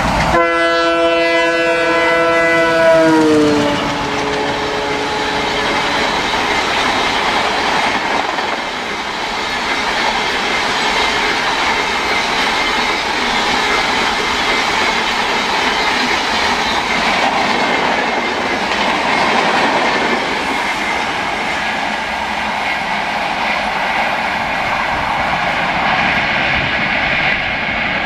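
Express train's locomotive horn sounding several tones at once for about three seconds, dropping in pitch just before it stops, followed by the steady rush and clickety-clack of the coaches passing at full speed.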